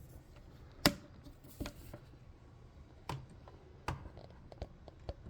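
Scattered small clicks and taps from the A1 mini hotend and nozzle parts being handled by hand. A sharp click a bit under a second in is the loudest, and several lighter ticks follow at uneven intervals.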